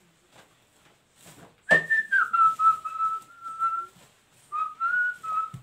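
A person whistling: one clear note comes in suddenly, steps down in pitch and is held with a slight waver for about two seconds, then after a short pause a second brief phrase wavers up and down near the end.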